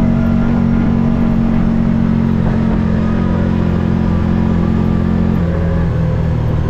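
Side-by-side utility vehicle's engine running steadily while driving, its note dipping slightly about five seconds in.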